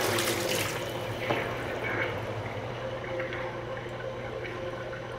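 Giant toilet flushing: water rushing and draining, strongest in the first second and then running on steadily over a constant low hum.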